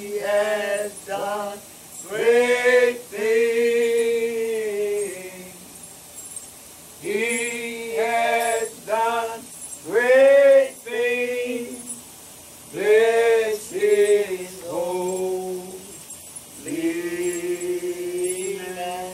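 A single man's voice chanting in slow phrases of long held notes, with short pauses between the phrases.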